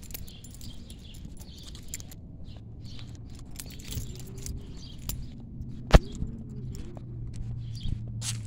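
Footsteps on asphalt, soft scuffs every half second to a second, over a low steady hum. A single sharp click about six seconds in is the loudest sound, with a smaller one near the end.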